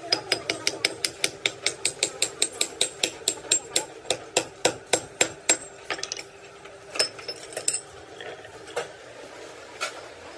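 Hammer striking metal in a fast, even run of ringing blows, about five a second, for over five seconds. It then slows to a few scattered single blows.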